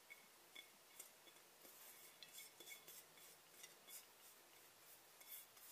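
Faint, scattered clicks and light chinks of a cut-glass bowl knocking against a metal steamer pot as couscous is scraped from it by hand, with a soft rustle of the grains.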